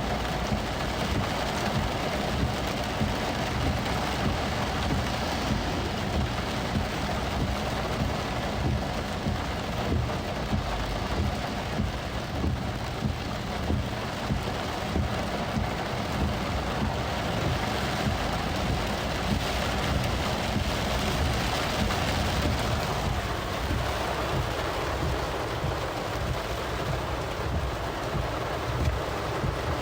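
Heavy downpour drumming on a car's roof and windshield, heard from inside the cabin, with a low rumble beneath and windshield wipers sweeping in small regular peaks about every two seconds.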